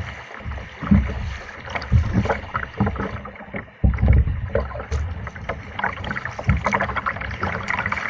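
Kayak paddling on a river: the paddle blades dip and pull through the water with splashing and dripping, and dull low thumps come every second or two.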